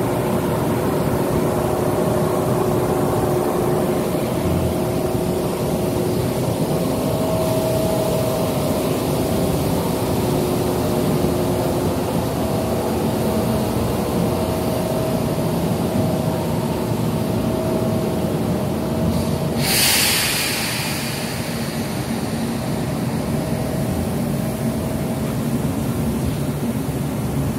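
Steady low machine rumble with a faint steady whine over it. About twenty seconds in, a loud hiss of air bursts out for about a second and a half, then fades.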